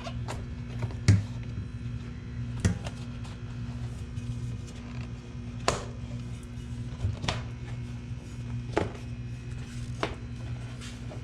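Bicycle tyre bead being worked back onto the rim by hand: scattered sharp clicks and snaps, about seven in all, over a steady low hum.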